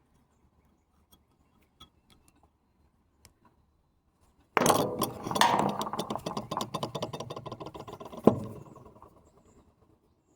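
A sudden rapid mechanical rattling, many clicks a second, that starts loud about halfway through and dies away over several seconds, with one sharp knock near its end. Faint small clicks of handling come before it.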